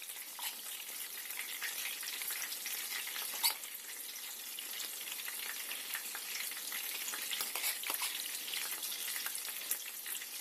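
Chicken breast chops frying in hot oil in a pan: a steady sizzle with fine crackles, and a single sharp tap about three and a half seconds in.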